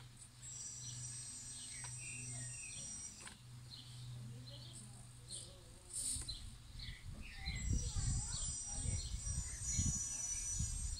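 1:14-scale RC Caterpillar 973 track loader working in loose soil. For the first half its electric drive gives a steady hum and a high whine. From about six seconds in, uneven knocking and scraping of its tracks and handmade ripper in the dirt grow louder. Small birds chirp throughout.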